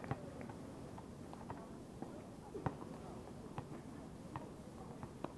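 Scattered sharp taps and knocks from play on an outdoor volleyball court, with players' footsteps and ball contacts, over a low steady background. The loudest knock comes about two and a half seconds in.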